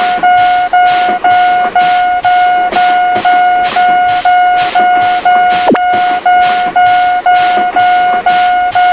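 Railroad crossing warning signal ringing in a steady repeating beat, about two strikes a second, each strike a single bright tone. A single sharp click comes about six seconds in.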